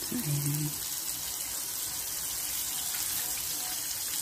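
Flour-coated squid rings deep-frying in hot oil in a shallow pan: a steady sizzling hiss.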